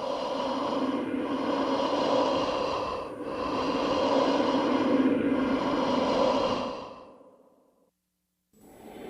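Eerie, processed ghostly breath sound effect: a long, hollow, airy breath with a ringing hum in it. It swells, dips briefly about three seconds in, swells again and fades out, and another breath begins just before the end.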